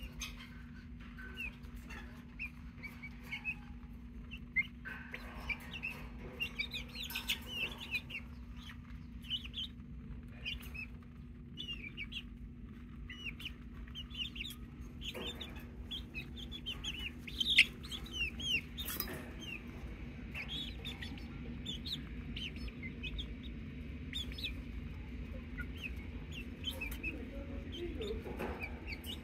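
A flock of young pullets making many short, high chirping calls and soft clucks while pecking at a papaya, with scattered sharp taps of beaks. There is one loud sharp knock a little past the middle and a steady low hum underneath.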